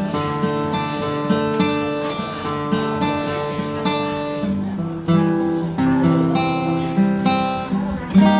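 Yamaha FG800 steel-string acoustic guitar with a solid spruce top, played as a steady flow of picked notes and chords that ring on.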